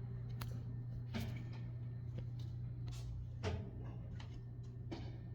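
Small irregular knocks and ticks from inside the building's walls or ceiling, about one every half second to a second, over a steady low hum. The resident suspects rats moving through the walls.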